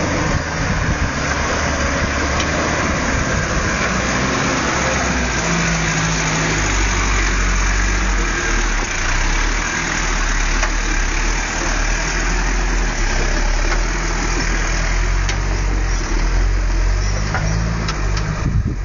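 Toyota Land Cruiser 70's engine running at low revs under load as the truck crawls up a steep rock slope, its pitch rising and falling in steps.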